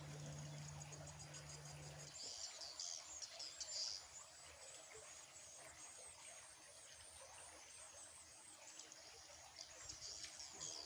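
Faint outdoor ambience of high, repeated chirping from insects and birds, with a low steady hum that stops about two seconds in.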